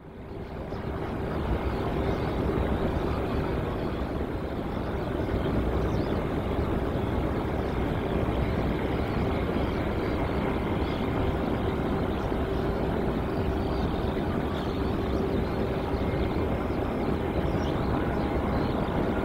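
Jet airliner engines running steadily: a constant rumble with a steady whine through it, fading in from silence at the start.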